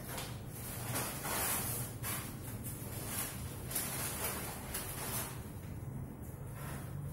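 Repeated short strokes of rough hiss from hand work on a painted wooden cabinet surface, irregular and about a second or less each, over a steady low hum.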